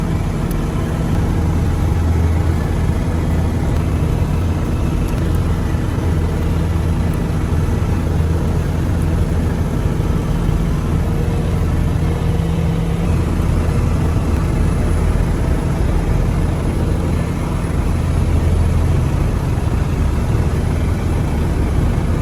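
Boat engine running steadily: a constant low drone with no change in speed.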